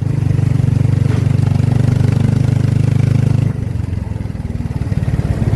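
Tricycle's motorcycle engine running steadily under throttle, its note dropping and getting quieter about three and a half seconds in as it eases off.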